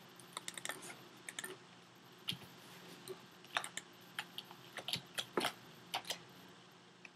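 Faint computer keyboard keystrokes in short, irregular runs of clicks: a password being typed at a sudo prompt.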